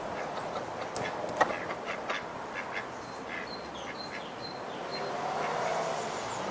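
White domestic ducks quacking in short calls at the water's edge, with faint high chirps behind and a sharp click about a second and a half in.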